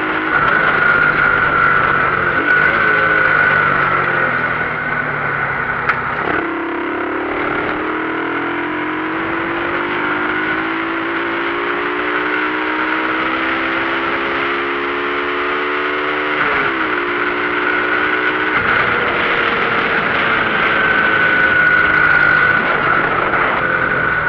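Motorcycle engine running while ridden. About six seconds in, its pitch drops, then climbs steadily for about ten seconds and drops again, as at gear changes. A steady high tone runs over it throughout.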